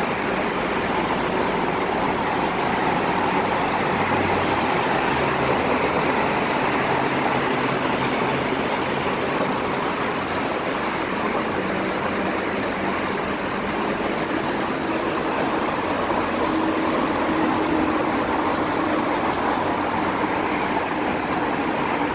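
Steady traffic noise from a busy multi-lane highway and interchange below: an even wash of tyre and engine noise, with the hum of single vehicles showing through now and then.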